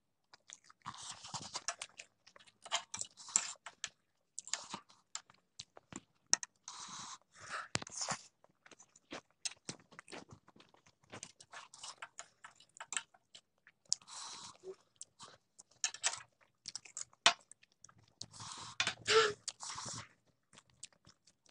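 Close-up mouth sounds of a person eating spicy instant noodles: wet chewing and slurping with many small mouth clicks. Short hissing sounds come now and then.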